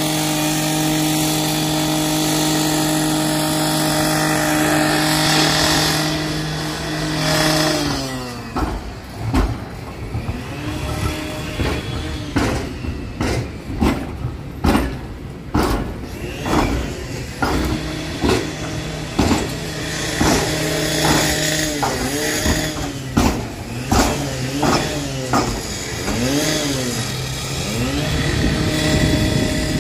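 Street sound as B2-class tram 2055 passes through the level crossing. It opens with a steady engine hum that drops in pitch about eight seconds in. Then comes a long run of irregular clunks and knocks, with engine sounds rising and falling.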